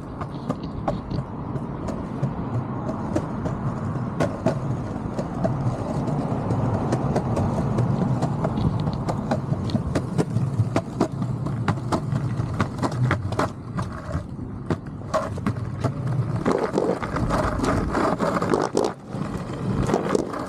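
Bustin Sportster longboard rolling over concrete sidewalk: a steady rumble of the wheels on the pavement, broken by many sharp clicks as they cross joints and cracks in the slabs.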